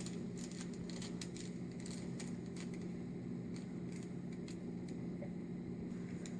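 Rubik's cube layers being turned by hand, giving quick irregular plastic clicks, over a steady low hum.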